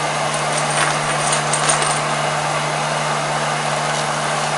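Electric heat gun running steadily, its fan blowing with a constant motor hum. Light clicks and rattles in the first couple of seconds.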